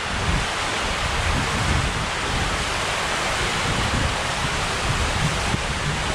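Four-person raft rushing down the enclosed tube of a ProSlide TornadoWave water slide: a steady rush of sliding water with a low rumble from the raft on the tube walls.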